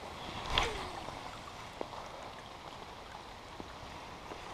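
Light rain falling on a pond, a steady hiss with scattered small drop ticks, and one brief louder rush about half a second in.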